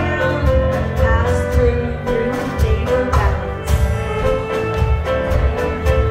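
Live dance band playing a contra dance tune with a steady driving beat.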